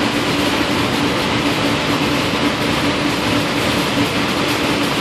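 Steady rush of cooling fans and air conditioning, with a steady low hum under it.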